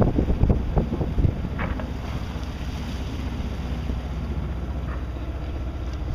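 Wind buffeting the microphone aboard a sailboat at sea, over a steady low rumble; the gusts are strongest in about the first second and a half, then settle into an even rush.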